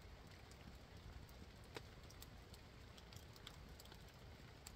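Small wood fire crackling faintly: scattered, irregular soft pops and ticks, one a little sharper about two seconds in.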